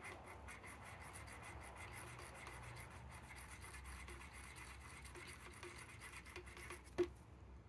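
A metal hoop earring rubbed quickly back and forth across a black touchstone, a scratch test for gold: a faint, steady scratching that stops with a sharp click about seven seconds in.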